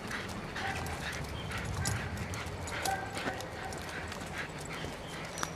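Footsteps of a walker and a Staffordshire bull terrier on a lead on a leaf-strewn earth path, at a steady walking pace of about two steps a second.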